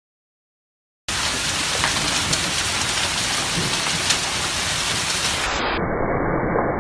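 Hailstorm with heavy rain pelting down: a dense, steady hiss dotted with sharp ticks of hailstones striking. It starts abruptly about a second in.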